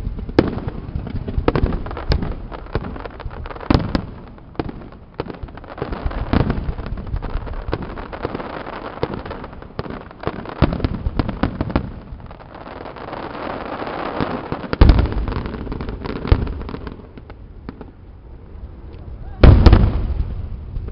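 Fireworks display: a run of sharp booms from bursting aerial shells, denser rapid pops through the middle, and the loudest bursts about fifteen seconds in and again near the end.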